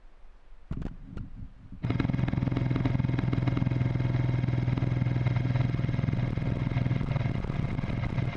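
A couple of sharp clicks, then from about two seconds in an airsoft electric gun fires one long, unbroken full-auto burst, its motor and gearbox cycling rapidly with a steady hum.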